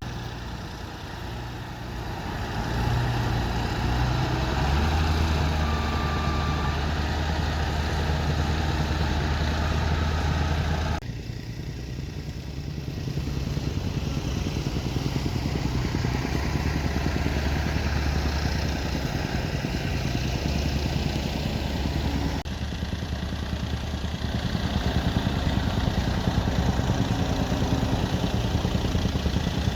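Heavy earthmoving machinery's diesel engine running steadily under work. The sound shifts abruptly about eleven seconds in and again a little past twenty-two seconds.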